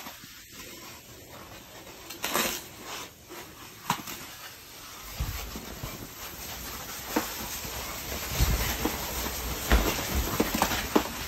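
Ice skate blades scraping and hissing over clear, hard lake ice, with sharp scrape strokes scattered throughout. A low rumble joins about halfway through.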